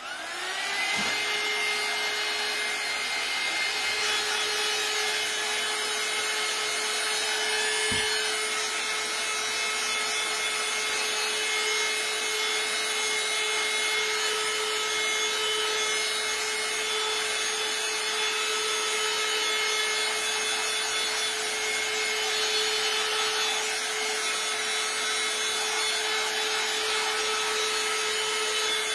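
Small handheld heat tool switched on and running: its fan motor spins up within about a second, then runs steadily with a constant whine and a rush of blown air. It is drying freshly applied chalk paste.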